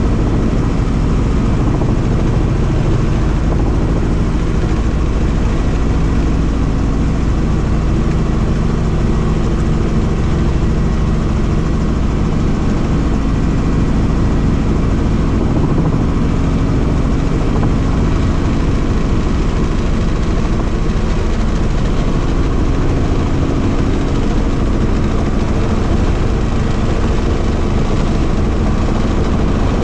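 Helicopter in flight: steady, loud turbine and rotor noise, with the low end strongest and no change in pitch or level.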